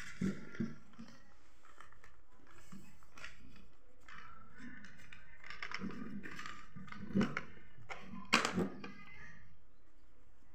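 Light knocks and clicks of crayons and hands against a tabletop while colouring, with a sharper cluster of clicks near the end as a crayon is picked up.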